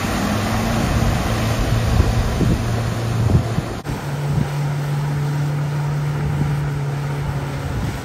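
Mahindra Scorpio SUV engine pulling hard through deep mud, its spinning wheels splashing and throwing up mud, with wind on the microphone. About four seconds in the sound cuts abruptly, and a steady, slightly higher engine note follows.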